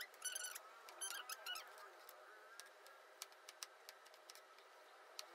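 Kitchen knife slicing an onion on a cutting board: faint clicks as the blade meets the board, with two short squeaks in the first second and a half.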